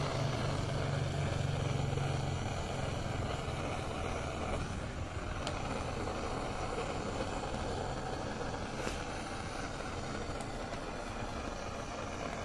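Handheld butane canister torch burning steadily with a rushing hiss, its flame heat-tinting a chrome exhaust muffler. A low hum sounds under it for the first few seconds and fades out.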